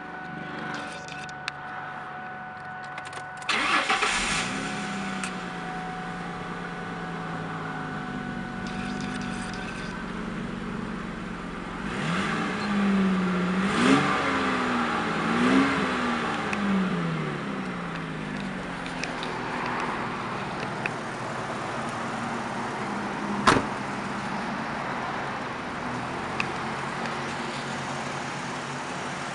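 2002 Ford Mustang's 3.8-litre V6 cranked and started about three and a half seconds in, then idling; midway it is revved three times in quick succession and drops back to idle. A steady high tone sounds through the first third, and a single sharp knock comes about two-thirds through.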